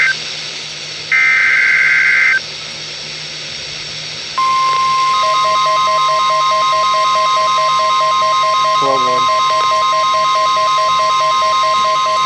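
Emergency Alert System signal. The data header's warbling two-pitch digital bursts come first: the end of one right at the start, and another lasting about a second and a half from about a second in. About four seconds in, a single steady attention tone starts and holds, announcing a flash flood warning.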